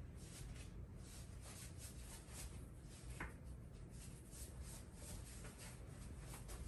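Quiet room tone with a low hum, faint rustling and soft clicks, one clearer click about three seconds in.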